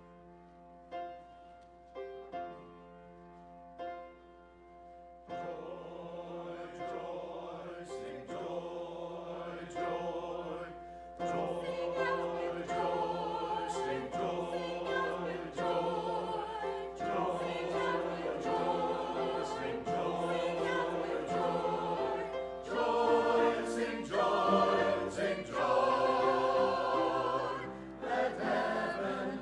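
A choir singing a church anthem with instrumental accompaniment. It opens with a short introduction of chords struck about once a second, then the voices enter and grow fuller and louder about eleven seconds in.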